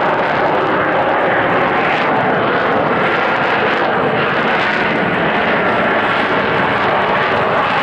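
F-35B Lightning II in short-takeoff-and-vertical-landing mode, its F135 jet engine and Rolls-Royce lift fan running loud and steady as it comes in to a hover, with a faint high whine over the noise.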